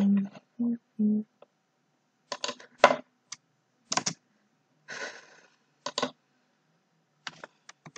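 Computer keyboard keys pressed one at a time, a dozen or so separate keystrokes spaced irregularly from about two seconds in, as stray spaces are deleted and lines are split in a document. A brief hummed "mm" from a person comes at the very start.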